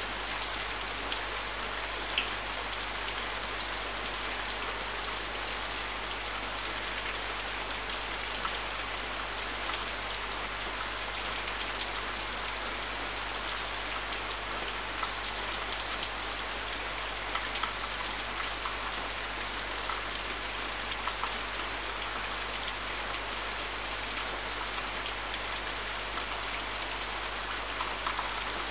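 Steady rain falling and pattering on surfaces, with now and then a sharper close drop or splash.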